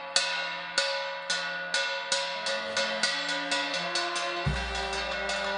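Small hand-held flat gong struck over and over, each stroke ringing on, the strokes speeding up from about two a second to a quick roll. Near the end a low sustained brass band note comes in under it.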